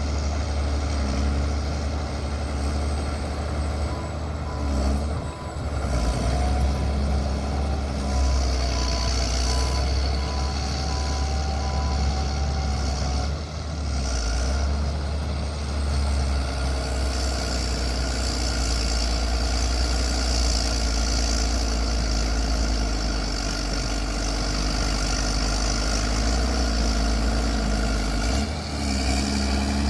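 Bulldozer's heavy diesel engine running under load with a steady low rumble, easing briefly three times. A faint regular beeping runs for several seconds in the first third.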